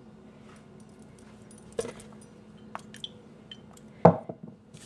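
Handling noises on a wooden board as oil is drizzled onto it to grease it and a ball of bread dough is taken in hand: a soft knock, a few small clicks, then a heavier thump about four seconds in, over a faint steady hum.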